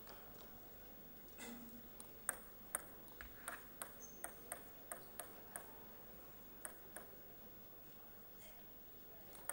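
Table tennis ball clicking off the rackets and table in a rally, a run of sharp ticks about two to three a second for around three seconds, then two more single ticks.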